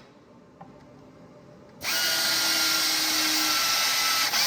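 About two seconds of quiet, then a power tapping arm starts suddenly and runs steadily, driving a 5/16 tap into the holes of a plastic part, with a high whine over a loud hiss.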